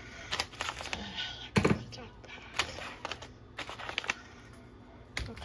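Grocery packages being handled and set down on a hard surface: an irregular string of light knocks and clicks, the loudest about a second and a half in.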